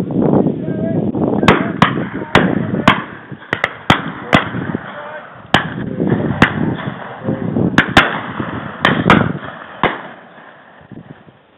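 A rapid run of shotgun shots from the guns on a driven pheasant shoot, about fifteen sharp cracks, several fired in quick pairs, over a steady low rumble of noise.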